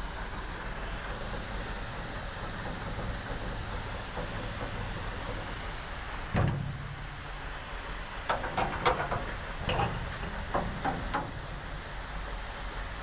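A vehicle engine idling steadily, with a single thump about six seconds in and a few sharp knocks and clicks between about eight and eleven seconds.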